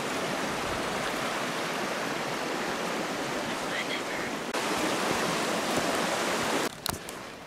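A mountain river rushing over gravel, a steady wash of water noise. It jumps louder abruptly about four and a half seconds in, then falls away near the end to quieter sound with a few sharp clicks.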